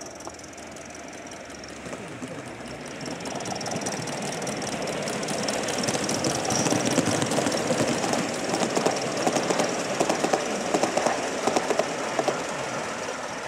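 Gauge 1 model steam locomotive, a BR Britannia class 7, running past close by with its train. The running noise builds up as it approaches, with a steady hiss and a run of quick clicking from the wheels near the end.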